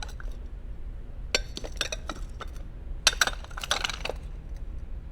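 Small hard objects clinking and knocking together as they are handled, in two short clusters of clicks about a second and a half in and again about three seconds in.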